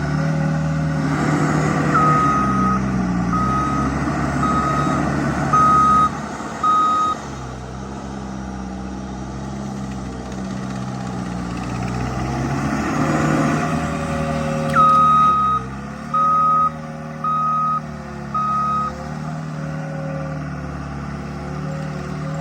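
Skid steer engine running and revving as the machine works, with its reversing alarm sounding twice in runs of about five beeps, roughly one a second, as it backs up.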